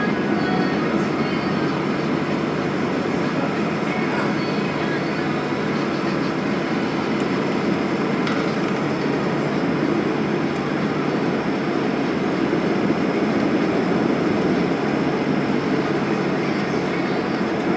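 Steady cabin rumble inside a Boeing 737 on the ground after landing, its jet engines running at idle with airframe and air-conditioning noise.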